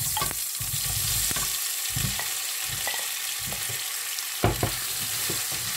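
Spiced boiled potato cubes sizzling as they land in hot oil, a steady hiss, with scattered knocks of a spoon in the pan, the sharpest about four and a half seconds in.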